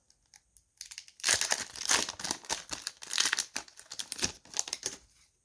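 Foil wrapper of a hockey card pack being torn open and crinkled, with the cards sliding and flicking out. A rapid crackling run of crinkles and small clicks for a few seconds.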